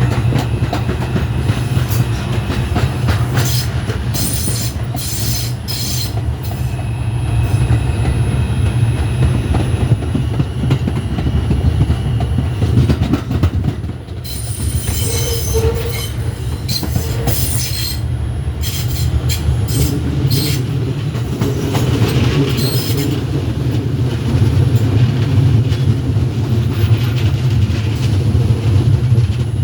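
R142 subway train running on the rails with a steady low rumble and wheel clatter, broken now and then by short high-pitched wheel squeals, in clusters a few seconds in, around the middle and again later.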